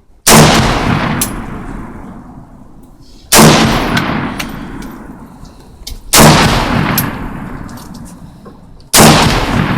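Four single shots from a Saiga AK-pattern rifle, fired slowly at a steady pace about three seconds apart. Each crack fades out in a long echo.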